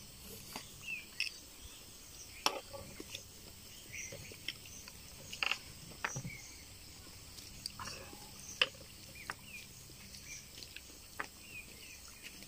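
Sparse sharp clicks and taps as jackfruit bulbs and seeds are handled on plates during eating, about once every second or two, over a faint outdoor background with short high chirps.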